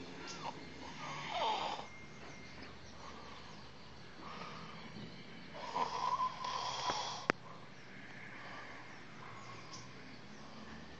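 A person snoring in sleep: a few rough snores several seconds apart, with a sharp click about seven seconds in.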